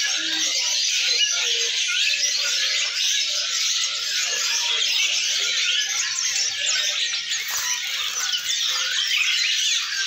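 A dense chorus of many caged songbirds chirping and singing at once, a steady overlapping mass of high chirps and twitters.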